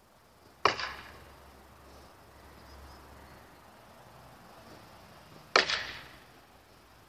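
Training longsword striking a wooden pell twice, about five seconds apart: each a sharp knock with a short ringing tail.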